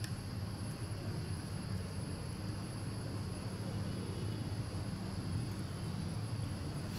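Steady low rumble of outdoor background noise, with a thin, steady high whine above it.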